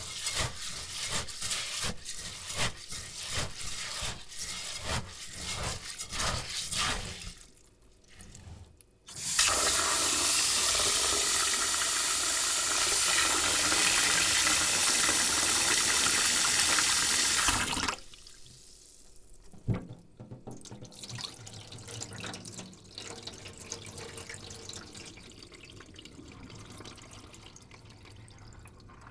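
Rice being washed by hand in a bowl: the grains are scrubbed with quick, rhythmic rubbing strokes for about seven seconds. After a short pause, a tap runs steadily into the bowl for about eight seconds, then cuts off, leaving quieter, irregular sounds of rice and water being stirred.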